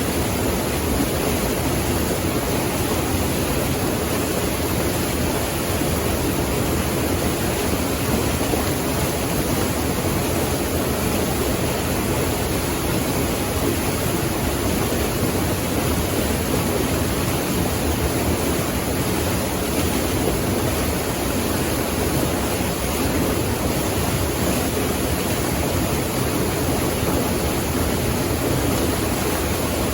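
Steady, even rush of running water that holds unchanged throughout.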